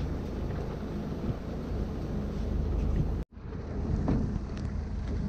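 Wind buffeting the microphone over a steady low rumble out on the water. The sound cuts out completely for an instant about three seconds in.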